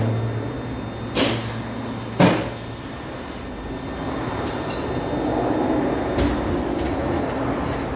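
Hand tools being put away in a toolbox or tool cart: two sharp metal knocks about a second apart, then lighter clicks and rattles. A low steady hum cuts off just after the second knock.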